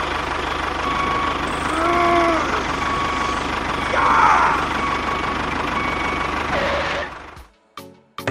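Engine of a home-built mini tractor running steadily with a low, even pulse, then dropping away about seven seconds in.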